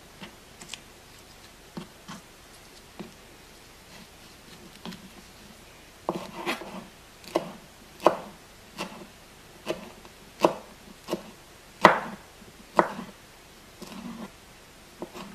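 Kitchen knife chopping fresh herbs on a wooden cutting board: an uneven run of sharp knocks, about one or two a second, starting about six seconds in. Before that, only faint ticks as basil leaves are plucked from their stems.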